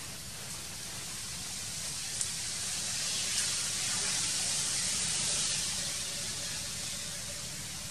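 A steady high-pitched hiss of forest background noise that swells for a few seconds in the middle and eases off again, with a couple of faint ticks.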